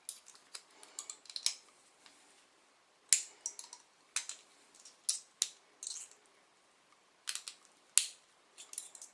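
Irregular small metallic clicks and scrapes as multi-tool pliers grip and twist the end of a paperclip wire, with sharper clicks about three seconds in and again near the end.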